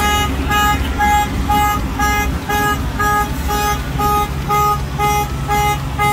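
Electronic beeper sounding steadily at about two buzzy beeps a second, over the low rumble of idling trucks.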